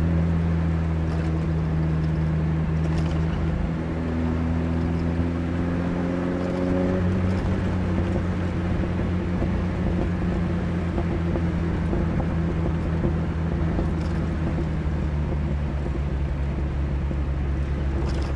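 1982 Chevrolet Chevette's freshly rebuilt 1.4-litre eight-valve four-cylinder engine running while driving. Its pitch climbs slightly from about four seconds in, drops back at about seven seconds, then holds steady.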